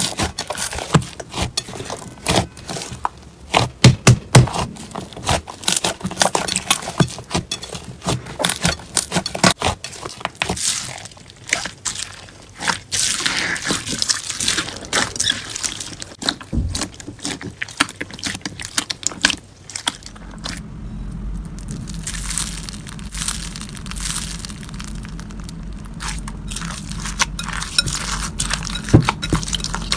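Hands squishing and kneading slime, first a clear slime packed with foam beads: dense irregular wet crackling and popping. Later a steady low hum sits under the crackling.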